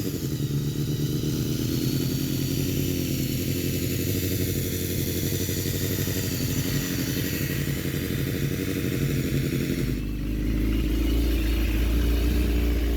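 BMW S1000RR inline-four engine idling steadily in freezing cold, being run to bring the oil up to temperature because the race bike has no coolant in it. A deep rumble joins about ten seconds in.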